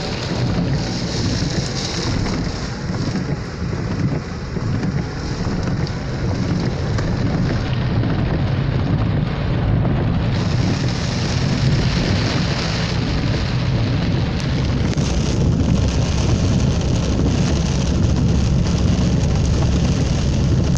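Heavy rain falling steadily, with a deep rumble underneath.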